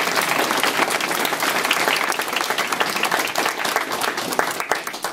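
Crowd applauding, many hands clapping together, thinning out near the end.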